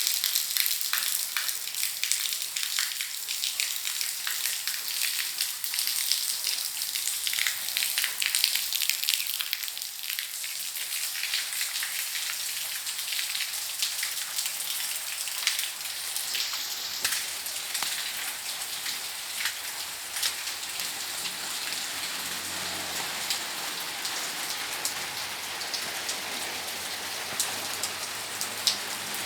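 Rain falling steadily, a dense hiss with many separate drop hits ticking close by. The drop hits are thickest in the first ten seconds.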